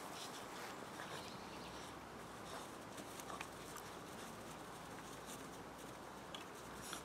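Faint scuffling and pattering of two Rottweiler × Rhodesian Ridgeback puppies play-fighting on grass, with scattered light taps and clicks.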